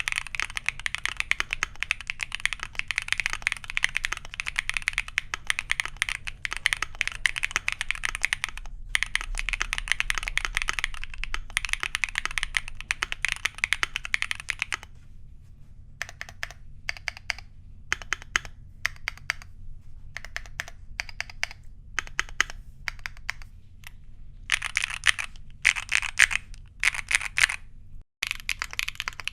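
Mechanical keyboard with factory-lubed Gateron Lemon Seabreeze linear switches on a polypropylene (PP) plate being typed on: fast continuous typing for about the first half, then slower single keystrokes and short bursts of typing.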